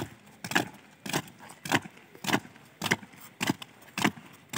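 A squad of cadets marching in step on concrete, their shoes striking the ground together in an even beat of roughly two steps a second.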